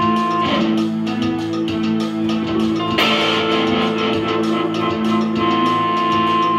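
Electric guitar played through a small practice amp together with a Casio keyboard holding sustained notes, a live band jam without drums.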